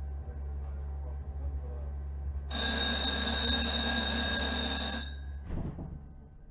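A tram running by with a steady low rumble. About two and a half seconds in, an electric bell rings steadily for about two and a half seconds, then the rumble fades away.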